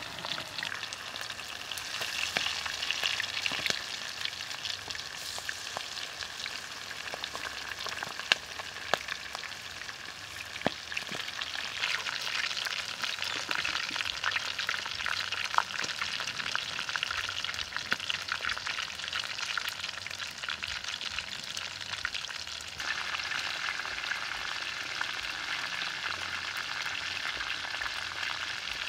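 Whole quails deep-frying in hot oil in a wok: a steady sizzle full of small crackling pops.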